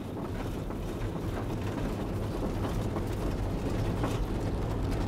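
Cockpit noise of a Titan Tornado II light aircraft rolling out on a rough grass strip after touchdown. The engine hums steadily beneath a constant rattle and clatter from the airframe and landing gear bumping over the uneven ground.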